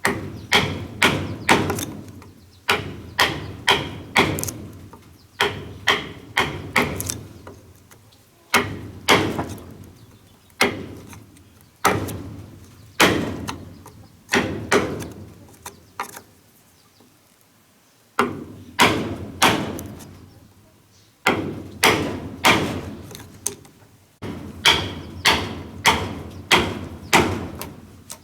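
Repeated hand-tool blows on wood, as in hammering or chopping during building. They come in runs of a few sharp strikes, about two to three a second, with a quiet pause of about two seconds past the middle.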